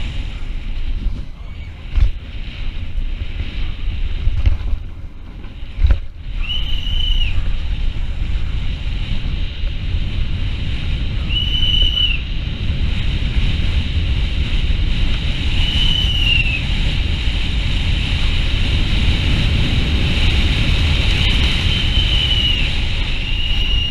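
Rushing wind on the microphone and road noise from a downhill mountain bike running fast over cobblestones, with two sharp knocks about two and six seconds in. Short high whistle-like tones sound five times, each under a second.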